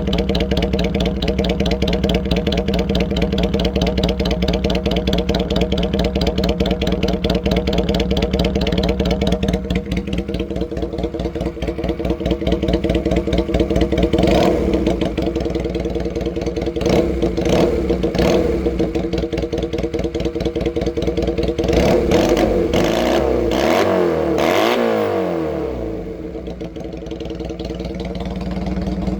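Honda Rebel CA125's 124cc parallel-twin engine idling through freshly fitted BSM dual side pipes after a pilot-jet change. It gets a few short throttle blips about halfway through and a longer rev a few seconds later that falls back to idle.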